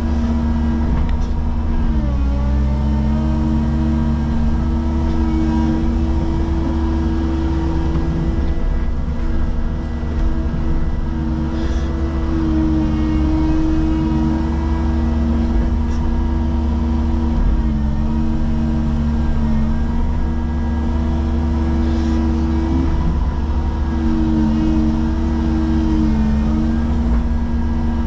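Cat excavator's diesel engine and hydraulic pump running steadily while it digs, with a steady whine. The pitch sags briefly a few times and recovers as the hydraulics take load.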